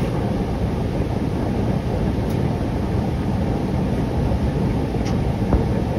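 Artillery Sidewinder X4 Pro 3D printer running a print, giving a steady low rumbling noise with a few faint clicks.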